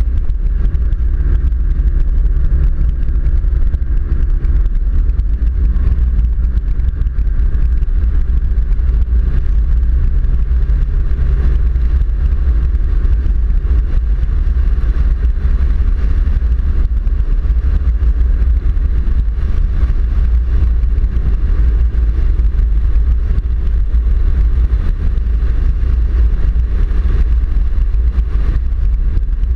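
A 4WD driving at speed on a gravel road: a steady, loud low rumble of tyres on gravel and wind on the vehicle-mounted camera, with the engine's drone faintly under it in the first dozen seconds.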